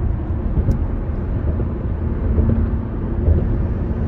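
Steady road and engine noise inside a car's cabin while cruising on a highway: a continuous low rumble.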